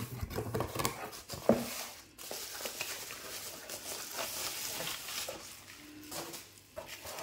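Packaging of a pair of motorcycle mirrors being handled and opened: rustling and crinkling with scattered taps and clicks, one sharper knock about a second and a half in.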